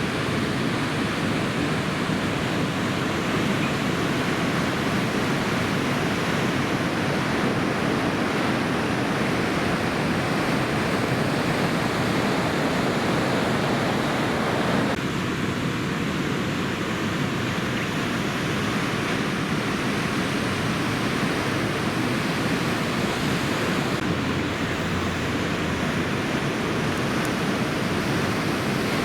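Steady rushing noise of heavy typhoon-swell surf, with no single wave crash standing out. The tone of the noise shifts slightly about halfway through.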